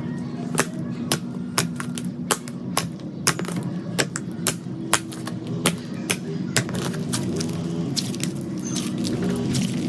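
Slime being pressed and squeezed, making sharp popping clicks from trapped air about twice a second.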